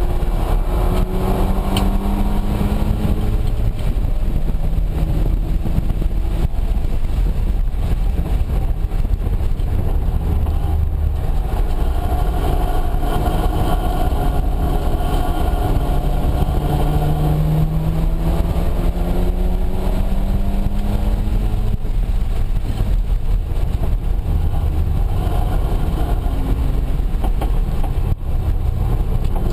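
Mazda RX-7's turbocharged rotary engine pulling hard, heard from inside the cabin on track, its pitch climbing steadily a couple of times, around the second second and again from about 15 to 21 seconds, then falling back. Constant road and wind noise runs underneath.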